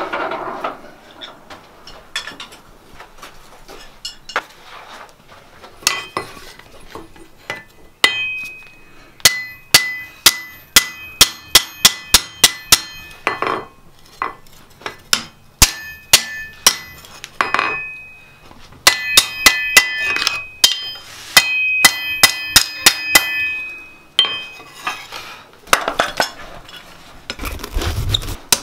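Hammer blows on hot steel bar on an anvil, in several runs of quick strikes a few a second, each blow leaving a loud high ring from the anvil.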